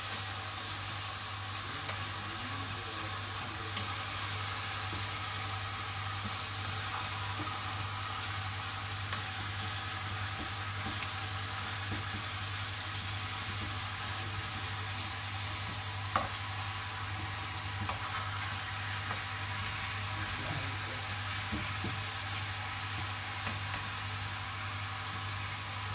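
Skinned chicken pieces frying in hot fat in a pan, a steady sizzle, with a few sharp clicks scattered through.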